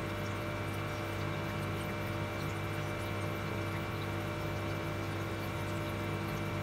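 Sweet potato chunks frying in oil on an induction cooktop: a steady hum with faint scattered crackles of the bubbling oil.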